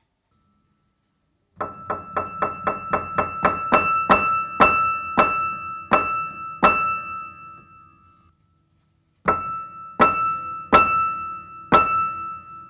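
One high note on a musical instrument struck again and again, each strike carrying a sharp wooden knock along with the tone. This is the unwanted wooden knocking noise heard while playing. The strikes start fast and slow down, then after a pause come four more, spaced out.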